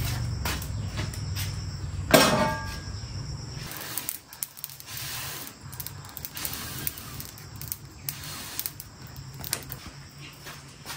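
Kitchen clatter of metal cookware: a loud ringing metal clank about two seconds in, then scattered clicks and knocks and a short hiss.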